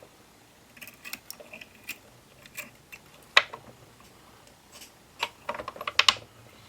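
Scattered light clicks and taps of hands and tools working at a fly-tying vise, with one sharp click about three seconds in and a quick run of clicks near the end.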